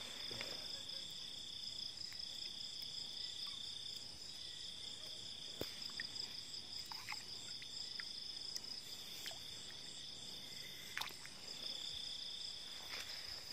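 Night insect chorus: two steady high-pitched trills, one running throughout and a lower one that stops and starts every few seconds. A few faint short clicks and rustles sound over it.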